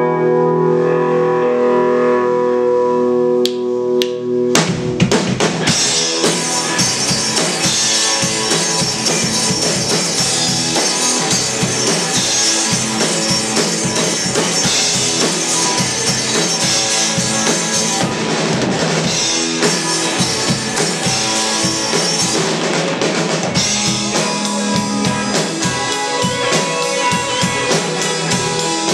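Live rock band of two electric guitars and a drum kit playing an instrumental passage. Sustained guitar chords ring alone at first, then the drums and full band come in about four and a half seconds in and play on with a steady beat.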